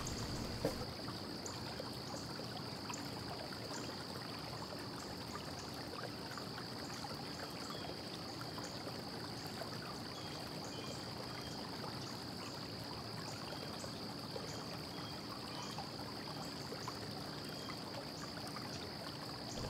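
Steady hiss with a constant high-pitched whine and a few faint ticks, but no distinct events: a background noise floor.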